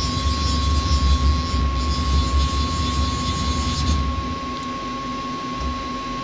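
FANUC Robodrill CNC machining centre running inside its enclosure, with a steady high whine. A hiss and a low rumble run with it and stop about four seconds in.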